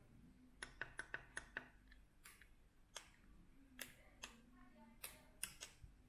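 Faint, sharp clicks of buttons being pressed on a smart plug and a handheld 433 MHz remote. There is a quick run of about six clicks about half a second in, then single clicks every half-second to second.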